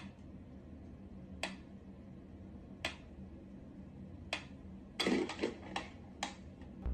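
Wooden pyramid mechanical metronome ticking slowly, one sharp tick about every second and a half. About five seconds in comes a brief louder scuffle and clatter as the cat paws at it and bolts, followed by a couple of quicker clicks.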